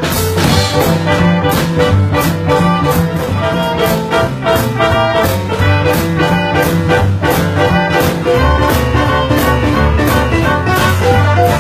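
Live band playing an up-tempo boogie-woogie number led by piano, with a steady, driving beat.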